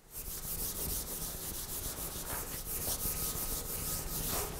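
Dry-erase eraser wiping marker off a whiteboard in quick back-and-forth strokes, a steady scrubbing hiss that stops near the end.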